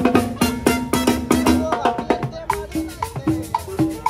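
Live Latin dance band of violin, guitar, drum kit and conga playing a cumbia with a steady beat.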